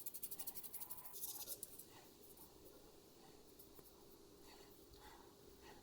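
Sandpaper rubbed quickly back and forth over a small resin-coated 3D-printed plastic part, smoothing the cured UV resin. Rapid faint scratchy strokes for about the first two seconds, then only a few faint scratches.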